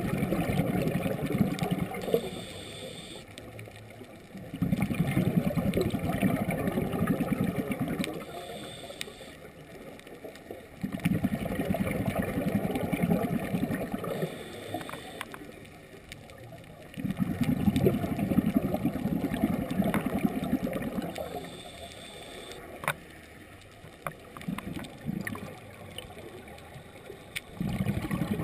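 Scuba diver breathing through a regulator underwater: each exhalation bubbles out for two to three seconds, alternating with a short hiss of inhalation, about one breath every six seconds.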